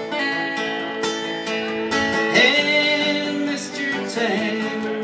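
Acoustic guitar strummed live as song accompaniment, with a sung note held for about a second in the middle.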